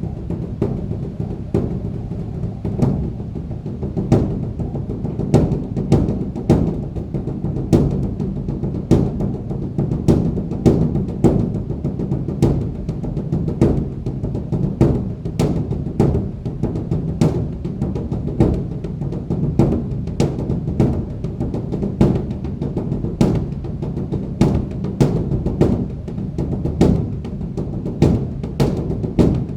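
Large Korean Buddhist temple drum (beopgo) being beaten with sticks in a fast, uneven rhythm of about two strokes a second. Its deep boom carries on between the strokes.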